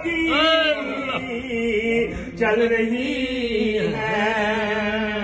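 Male voices chanting zikr, a wavering melody held on long notes, with a short break about two seconds in.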